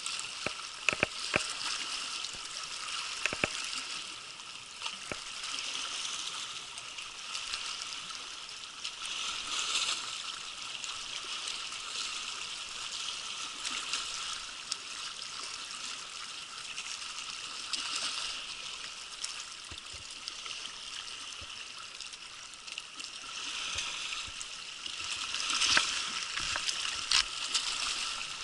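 Small sea waves washing and sloshing among shoreline rocks, swelling every several seconds, with scattered sharp clicks and splashes.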